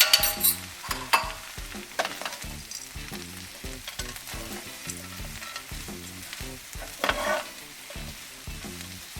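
Chickpeas and spinach sizzling as they are sautéed in a frying pan, with a utensil stirring them: a few sharper scrapes and clicks against the pan, the loudest near the start and about seven seconds in.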